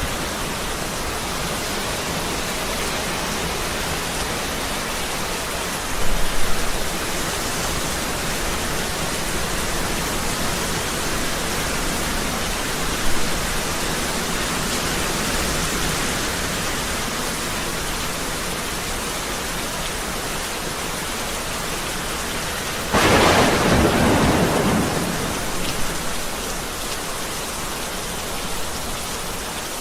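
Heavy rain pouring steadily in a thunderstorm. Thunder rumbles low about six seconds in and briefly near thirteen seconds, then cracks louder about twenty-three seconds in and rolls away over a few seconds.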